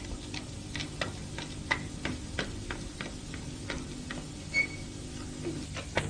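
A run of light ticks, about three a second and uneven in strength, over a low steady hum. A short high chirp comes about four and a half seconds in.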